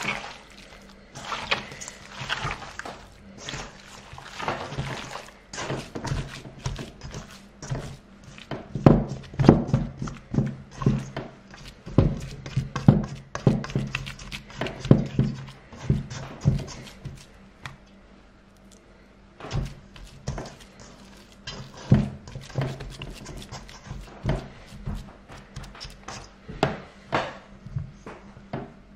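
Hands kneading and squeezing chunks of raw meat with seasoning in a stainless steel bowl: wet squishing of the meat and irregular thuds against the bowl, several a second. Busiest in the middle, with a short lull after about two-thirds of the way through.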